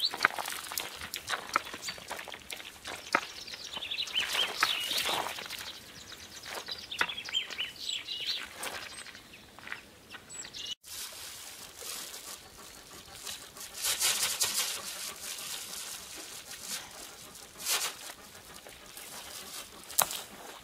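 Footsteps crunching on crusted snow and stones, with birds chirping high up during the first half.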